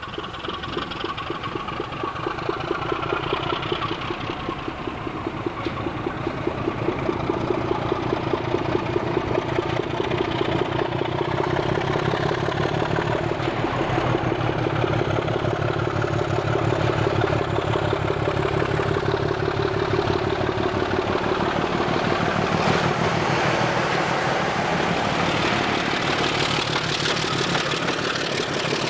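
Heritage mainline diesel locomotive approaching under power, its engine working hard and growing louder as it nears. In the last few seconds the locomotive and coaches pass close, adding wheel and rail noise.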